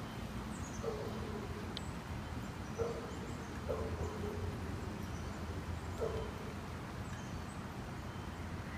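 Small white dog whining in short cries, four times, each starting sharply and trailing off into a held whine. Faint high bird chirps in the background.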